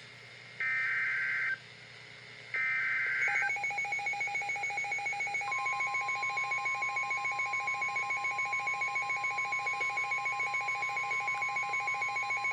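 Emergency Alert System signal on a NOAA Weather Radio broadcast: two short bursts of SAME header data tones, then a rapid beeping alert tone. About five seconds in, a steady 1050 Hz warning alarm tone joins it. Together they herald a special marine warning.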